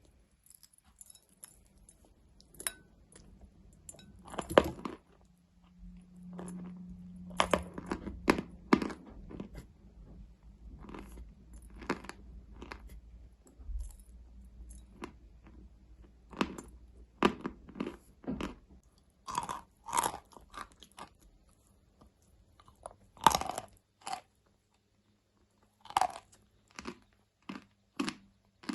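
Close-miked biting and chewing of a dry, brittle solid: sharp crunches come at irregular intervals, in clusters separated by short quiet gaps.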